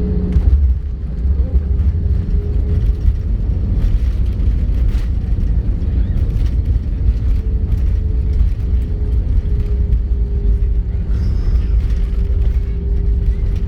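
Loud, steady low rumble inside the cabin of an Airbus A320, with a constant hum and frequent small rattles and clicks.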